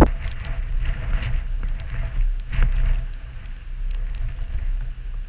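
Rain falling in scattered ticking drops over a steady low wind rumble on the microphone, with one sharp knock right at the start.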